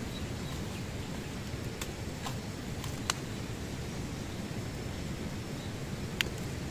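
Wood campfire with bamboo tubes of sticky rice roasting in it: a few sharp crackles and knocks, about four, over a steady low rushing background.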